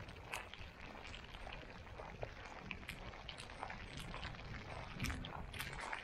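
Wind buffeting the microphone in a snowstorm, with a stronger gust about five seconds in, over soft crunching footsteps in snow.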